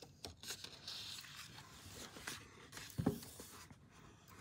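Page of a hardcover picture book being turned by hand: faint rustling and sliding of paper, with a soft thump about three seconds in.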